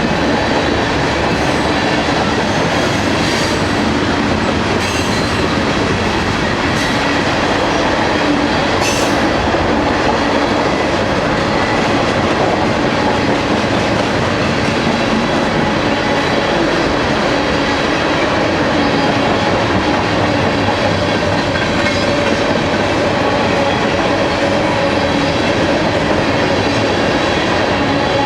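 Freight cars of a mixed manifest train rolling past at approach speed: a steady rumble of wheels on rail, with clattering over rail joints and a few sharp clanks in the first several seconds.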